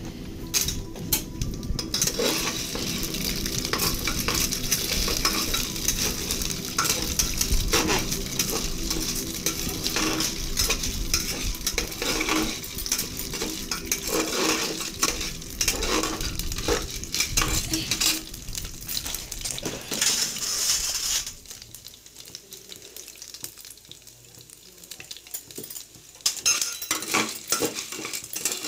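Spatula and spoon scraping and stirring popcorn kernels around an aluminium pressure-cooker pot, the kernels rattling against the metal while the oil sizzles as they heat before popping. The stirring pauses for a few seconds past the middle, leaving a softer hiss, then the scraping starts again near the end.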